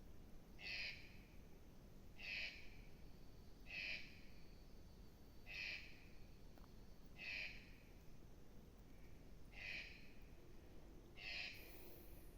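A bird calling over and over, faint, with about seven short calls spaced roughly a second and a half apart.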